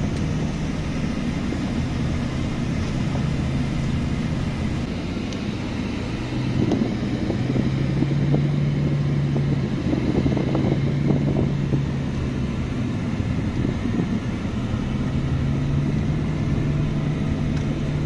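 Car engine running steadily at driving speed, a low hum over road and tyre rumble, heard from inside the cabin.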